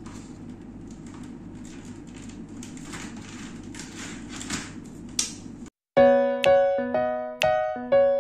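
Low room hum with small clicks and rustles of hands handling markers on paper; about six seconds in, background music starts, a keyboard tune of struck notes that each fade, louder than the clicking.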